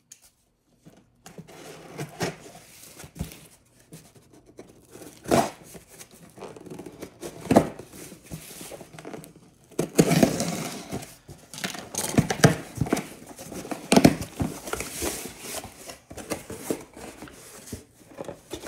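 Scissors slitting the packing tape on a cardboard box, then the flaps pulled open and the contents rustled inside: an irregular run of scrapes, tears and crinkles with a few sharp loud ones.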